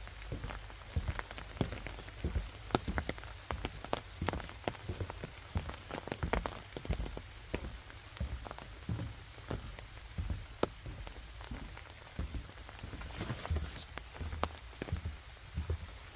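Rain falling, with many separate drops tapping irregularly on nearby surfaces over a steady hiss.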